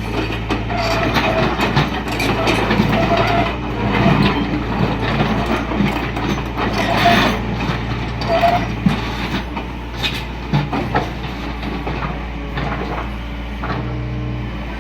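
Used Doosan mini excavator at work: the diesel engine runs steadily while the machine clanks and knocks, with several short metallic squeals.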